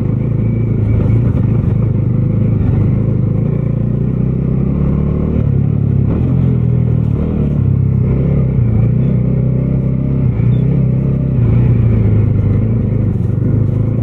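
Bajaj Dominar 250's single-cylinder engine running under way at moderate revs, steady with small rises and falls in pitch as the throttle changes.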